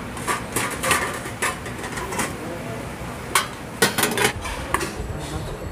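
Stainless-steel bowls and trays clinking and knocking on a steel counter: a scattered run of sharp metal clinks, the loudest cluster about three and a half to four and a half seconds in.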